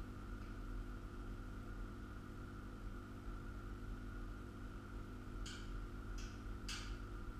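Quiet room tone: a steady low electrical hum and a faint high whine, with three short clicks or scrapes near the end as hands work on the steel sawmill frame.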